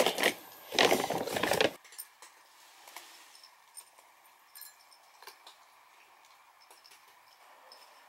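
A brief loud rustling clatter about a second in, then cats eating from their food bowls: faint, irregular small clicks and chewing.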